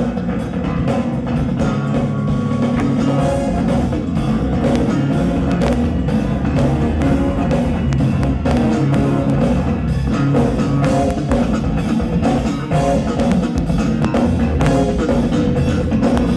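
Live funk band playing an instrumental passage with no vocals: electric guitar over drum kit and bass.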